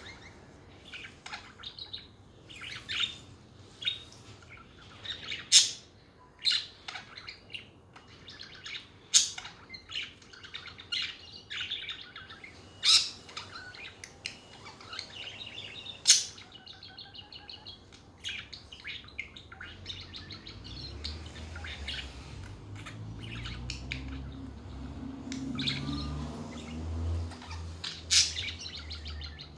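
Budgerigars chattering, a steady stream of short, sharp chirps and squeaks. A low hum swells up in the second half, then fades near the end.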